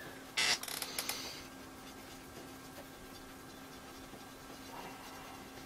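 A cotton bud rubbing grime off the CRT's glass: a short scratchy scrub about half a second in and a few faint scrapes around a second in, then quiet apart from a faint steady hum.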